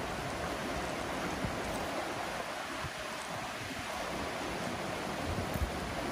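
Small woodland stream running steadily, water rippling and rushing over rocks and logs.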